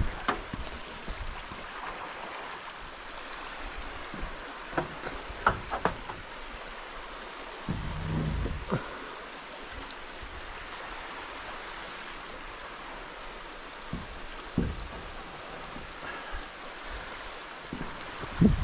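Creek water running steadily, with a few sharp wooden knocks and thumps as lumber is handled; the loudest knock comes near the end.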